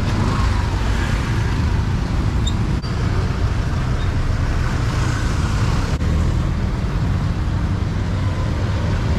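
Busy street traffic, mostly motorbikes and cars passing, heard as a steady low rumble.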